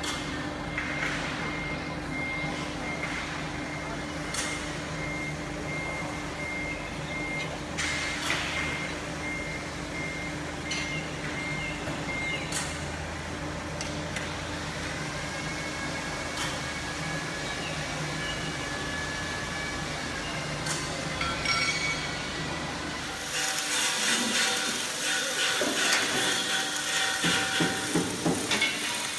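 A forklift's reversing alarm beeping over and over above a steady engine hum for the first twelve seconds or so. About 23 seconds in, this gives way to louder metalworking clatter, with knocks and clanks of metal and tools.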